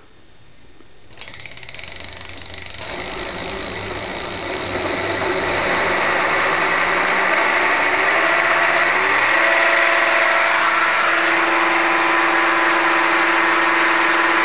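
Electric bike rear hub motor spinning up unloaded under throttle: a rough whirring whine that starts about a second in, climbs in pitch and loudness, then levels off at full speed about two-thirds of the way through. The roughness comes from the motor's very bad bearing.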